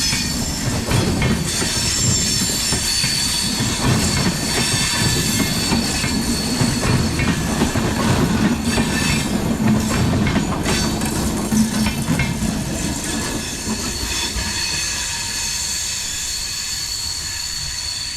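Steel wheels of the Chennai–Mumbai Superfast Express coaches screeching against the rails as the train rolls past, a steady high-pitched squeal over a low rumble with scattered clicks from the wheels on the track. The rumble eases off about two-thirds of the way in, while the squeal carries on.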